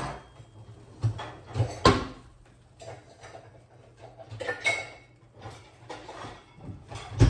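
Kitchen drawers and cupboards opening and shutting with utensils clattering, someone rummaging for a spatula. A run of separate knocks and rattles, the loudest a sharp bang near the end.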